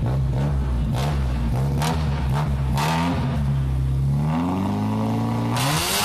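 Fiat 600 hatchback's engine through a loud exhaust, idling steadily and then revved up, the pitch climbing over the last two seconds, with echo from an underground garage.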